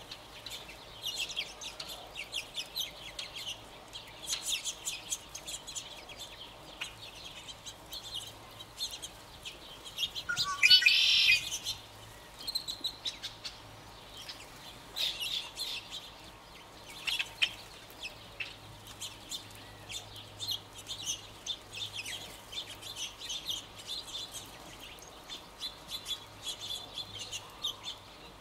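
A flock of California quail foraging, giving many quick chirping notes, with one louder, longer rising call about ten seconds in.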